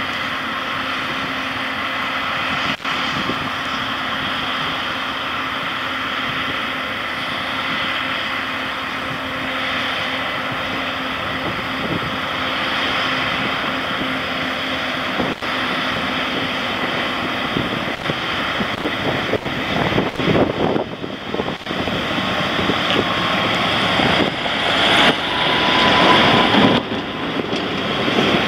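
Valtra tractors' diesel engines running as they drive along a gravel road toward the microphone: a steady engine drone. It grows louder and rougher in the last third, with gusts of wind buffeting the microphone.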